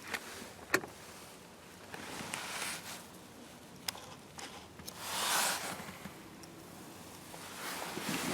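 Faint handling noise inside a car cabin: a few light clicks and a brief rustle about five seconds in.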